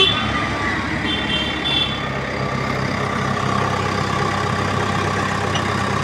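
Tandem road roller's diesel engine running steadily with an even low hum. A brief click at the start and short high-pitched squeals in the first two seconds.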